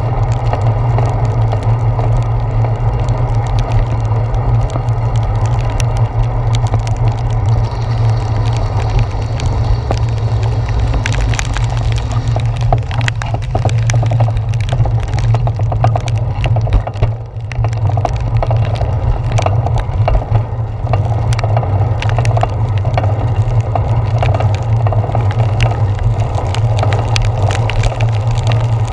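Raindrops tapping on a handlebar-mounted GoPro's waterproof housing, a dense crackle of small ticks, thickest about eleven to thirteen seconds in. Under it runs a steady low rumble of the bicycle rolling over wet pavement.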